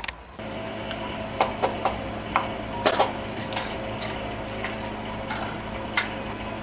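Thin aluminium baking moulds clinking and tapping against each other and the stone counter as flour is turned from one mould into the next and the excess is knocked out: about ten sharp, irregular clicks and knocks over a steady low hum.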